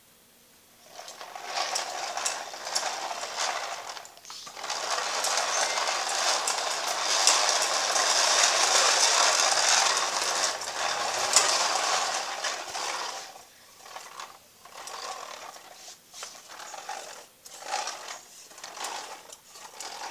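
Plastic toy jeep with dolls in it pushed across a tiled floor, its plastic wheels rolling and rattling, loudest in the middle stretch. Toward the end the rolling breaks up into scattered knocks and clicks.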